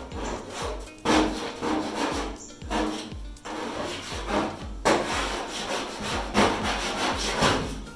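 Plastic scraper dragged over the stripper-softened paint of a 1973 Volkswagen Bus's steel door. It makes repeated scraping strokes, about one or two a second.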